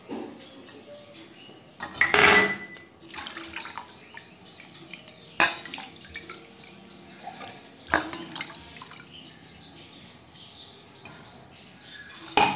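Water sloshing and splashing in a stainless-steel bowl as glass jars are dipped and rubbed by hand, with a louder splash about two seconds in and a few sharp clinks of glass against the steel.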